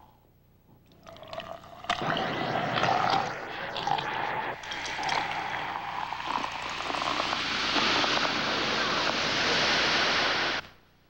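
A few short knocks, then cola pouring and splashing into a glass, building into a loud fizzing hiss of carbonation that cuts off suddenly near the end.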